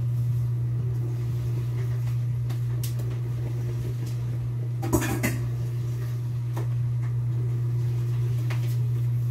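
A wok of coconut milk cooking under a heap of leafy greens, with a few scattered sharp clicks from the pan, the loudest about five seconds in, over a steady low hum.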